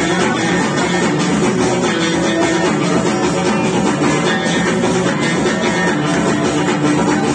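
Live Amazigh tagroupit band playing a steady groove: banjo and electric guitar over frame drums (bendir) and other drums.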